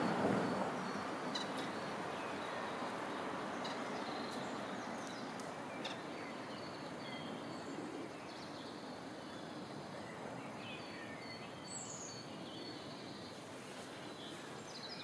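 Outdoor background noise: a steady rushing hum, loudest at the start and fading over the first second, with small birds chirping faintly here and there.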